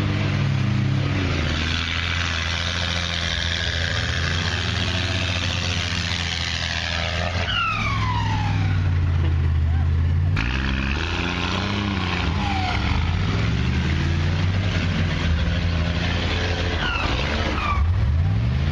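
Cummins turbo diesel in a dually pickup revving hard under load in deep mud, its pitch rising and falling again and again as the tyres churn, with a few falling whistles. Near the end another vehicle's engine revs through the mud.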